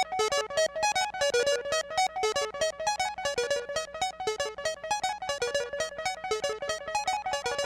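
littleBits Synth Kit playing a step-sequenced pattern from a Korg SQ-1: a rapid, even stream of short, pitched synth notes repeating a looping melody.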